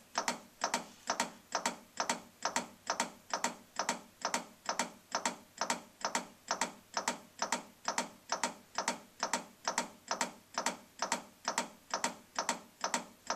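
Chest compressions on an adult CPR training manikin, a set of thirty: the manikin's chest clicks with each press in a steady rhythm of a little over two a second.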